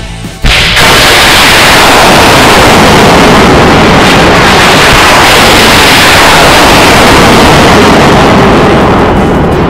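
Rockets launching from M142 HIMARS launchers: a sudden very loud blast about half a second in, then a dense, steady rushing roar of rocket motors at full loudness, easing slightly near the end.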